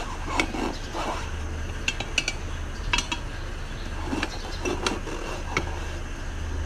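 Steel tyre levers clinking and scraping against a motorcycle's alloy wheel rim as the tyre bead is prised over the rim edge, in irregular short metallic clicks.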